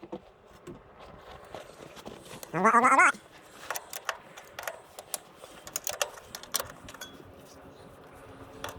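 One short, wavering animal cry rising in pitch about two and a half seconds in, amid scattered light clicks and clinks of metal tools.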